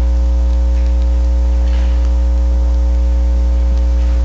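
Steady electrical mains hum with a buzzy ladder of higher overtones, constant and loud, with a few faint soft rustles over it.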